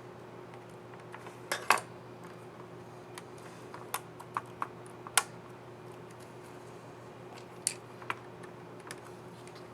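Small plastic clicks from a laptop keycap and its scissor mechanism being handled and pressed, irregular and scattered, with the sharpest snaps near the start and about halfway through.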